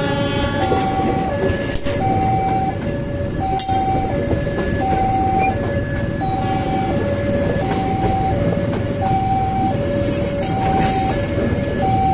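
Train rumbling past with the clatter of its wagons, over a steadily repeating two-tone electronic warning signal, a higher tone then a lower one about every second and a half. Brief high squeals come in near the end.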